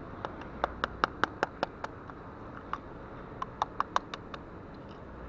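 Two quick runs of sharp clicks, about five a second: the first comes just after the start and the second a little past the middle.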